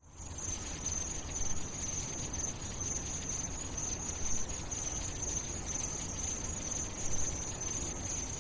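Steady high-pitched insect chirring, a cricket chorus, over a low background rumble.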